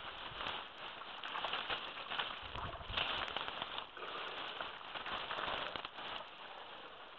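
Wet mud squelching and sloshing as an African forest elephant calf flops down onto its side in a mud wallow and wriggles in it. A crackly hiss with many small clicks runs under it, with a few heavier low sloshes about two and a half seconds in.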